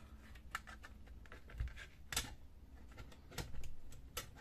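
Scattered light clicks and taps of springs and plastic parts being fitted into a laser printer fuser assembly by hand, with one sharper click about two seconds in and a few quick ones near the end.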